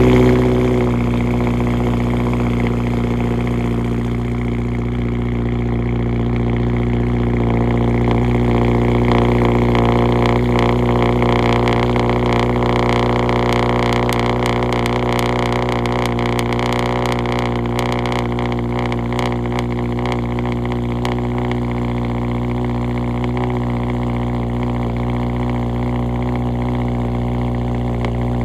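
Straight-piped, tuned Subaru WRX (VB) turbocharged flat-four idling just after a cold start. It is loudest right after catching, then settles into a steady idle drone.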